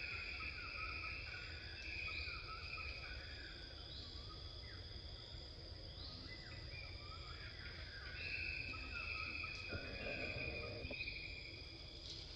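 Forest insects chirring steadily in a high drone, with a short rising call repeated about every two seconds. A brief rustle is heard about ten seconds in.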